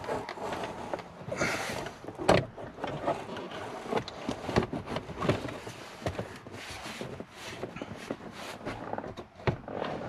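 Plastic centre-console trim being handled and shifted around a car's gear lever, with clothing rustle and scattered small clicks and knocks, the sharpest about two seconds in.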